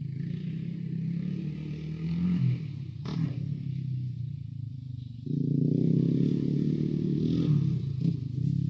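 Quad bike (ATV) engine running and revving, getting louder about five seconds in, with a sharp click about three seconds in.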